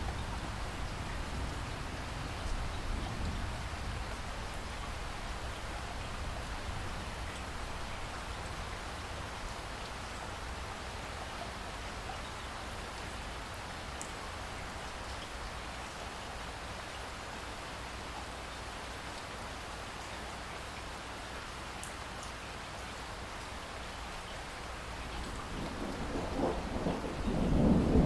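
Steady rain falling, with distant thunder rumbling low in the first few seconds, then a louder thunder roll building up near the end.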